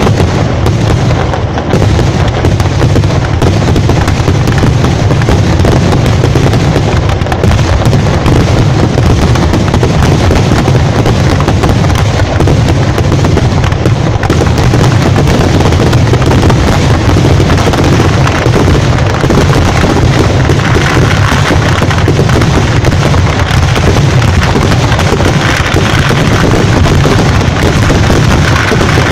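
A fireworks barrage going off at ground level: a dense, unbroken run of rapid firecracker bangs, so close together that they merge into one continuous, very loud crackle.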